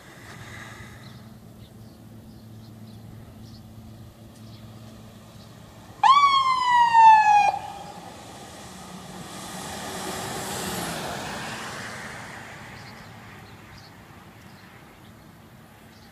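A single short siren whoop from an emergency vehicle, the pitch jumping up and then falling over about a second and a half, about six seconds in. The noise of a vehicle driving past then swells and fades.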